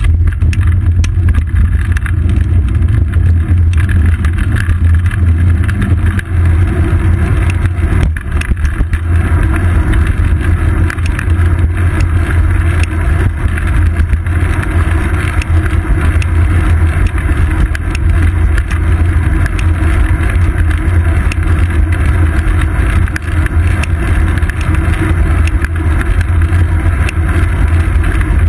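Loud, steady low rumble of wind and road vibration picked up by a GoPro Hero 2 mounted on a moving bicycle's seat post, with small rattling clicks.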